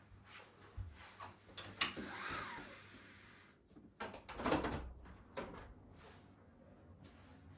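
Household handling noises: a few sharp knocks with a scraping swell about two seconds in, then a louder clatter and rustle around four to five seconds in.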